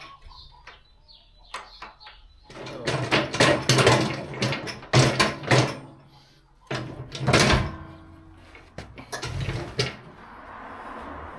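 Metal clanking and scraping in four or so bursts as a mulcher is pulled off the drive shaft of a two-wheel walk-behind tractor and shifted on the floor.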